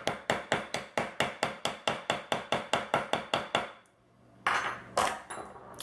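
Rapid, even hammer taps on a metal snap setter, about five a second, setting the flat stud half of a line 20 snap through leather laid directly on a stone countertop. The taps stop about four seconds in, followed by two brief handling noises.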